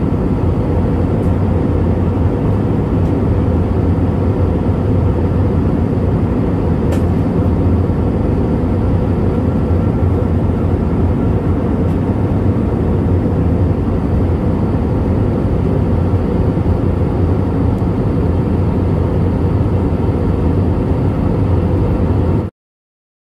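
Steady engine and airflow noise inside a jet airliner's cabin in flight, a deep even rumble with a hiss above it. It cuts off suddenly near the end.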